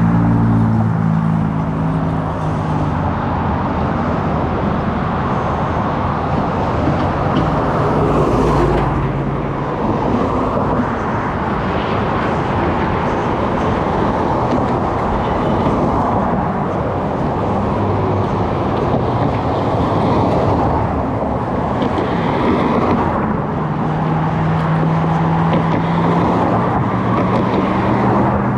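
Car driving on the road: steady tyre and road noise with the engine running underneath, its hum stronger at the start and again near the end.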